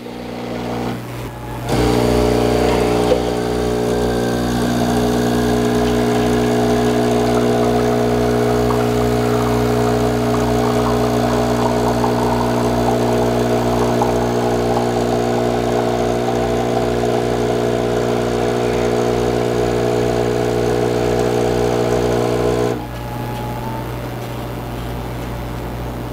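GeekChef 20-bar espresso machine's vibration pump buzzing steadily as it pushes hot water through the double-spout portafilter, brewing two cups of espresso. The buzz starts about two seconds in and cuts out near the end, when the two-cup shot is done.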